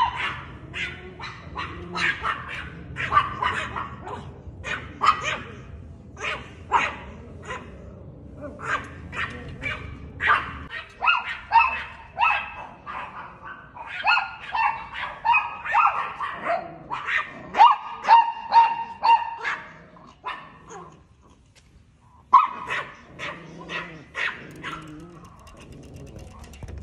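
Chihuahua barking at a cat in rapid runs of short, high-pitched barks, breaking off for about two seconds some three quarters of the way through.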